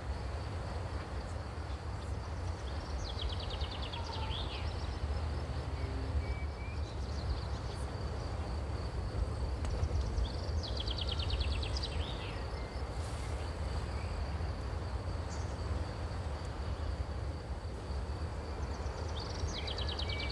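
Outdoor ambience: a steady low rumble and hiss with a faint thin high tone. A small songbird sings a short rapid trill three times, about eight seconds apart.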